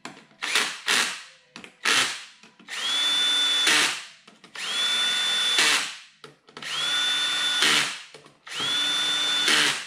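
Cordless drill driving in the clutch spring screws on a Ducati 400SS wet clutch. There are a few short trigger taps, then four runs of about a second each. In each run the motor whine rises quickly and holds, then ends in a short rattle.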